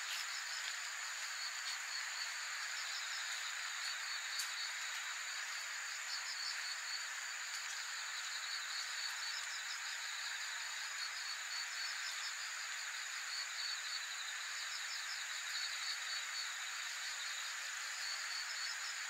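Insects chirping in short, rapid pulsed trills that repeat every second or two, over a steady high-pitched hiss.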